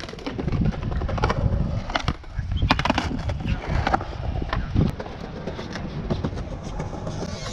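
Skateboard wheels rolling over concrete with a low rumble, and several sharp clacks of the board and trucks striking the ground.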